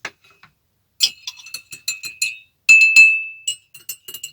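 A teaspoon stirring tea in a mug, clinking repeatedly against the side with a short ringing tone, the loudest clinks about halfway through.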